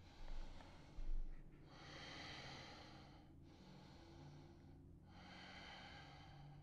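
A man breathing slowly and deeply in downward dog: three long, audible breaths of about a second and a half each, with a short low thump about a second in.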